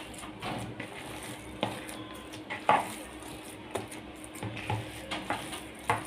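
A hand mixing and kneading raw chicken mince in a bowl: soft wet squishing, with a few brief sharper sounds, the loudest a little under three seconds in.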